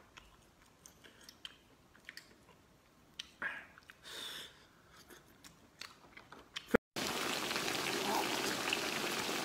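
Faint chewing and small wet mouth clicks from someone eating braised small abalone. About seven seconds in, the sound cuts off and gives way to a steady, louder hiss.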